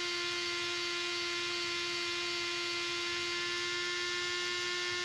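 Handheld rotary tool with a diamond-point bit running steadily: an even motor hum at one unchanging pitch, with a hiss above it.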